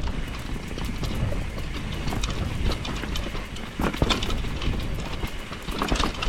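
Enduro mountain bike ridden down a rough, wet forest trail: a steady rolling rumble from the tyres with repeated clattering knocks from the bike over roots and rocks, heaviest about four seconds in and again near the end.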